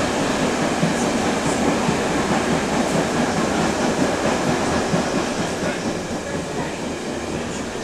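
Interior running noise of a Berlin U-Bahn D57 prototype car in the tunnel: a steady rumble of wheels on rail and motor noise, with some clickety-clack of wheels over rail joints. It grows a little quieter near the end.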